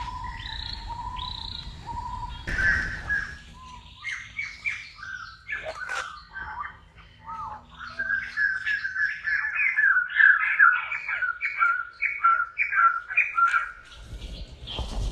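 Birds chirping: many short, pitched call notes in quick runs, growing busier and louder through the second half. A short burst of noise comes about two and a half seconds in.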